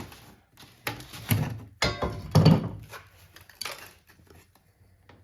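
Metal parts of a scrapped well pump being handled: about six short clunks and knocks, spread over three and a half seconds, with the loudest about halfway through.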